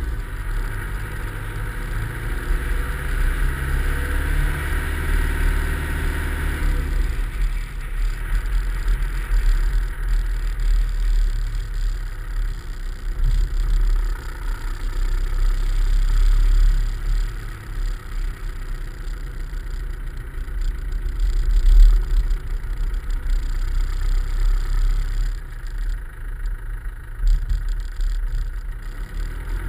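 Land Rover Discovery driving along a lane, its engine running with road rumble. The engine's hum is clearest for about the first seven seconds, then gives way mostly to a low rumble.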